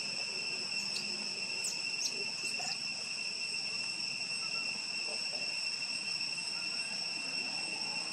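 Steady high-pitched drone of forest insects, a continuous ringing tone that does not change, with a few short faint high chirps over it in the first three seconds.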